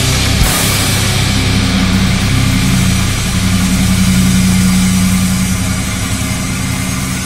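Loud, steady distorted drone within a hardcore punk recording: a held low hum under a wash of hiss, with bright cymbal-like noise dying away about half a second in.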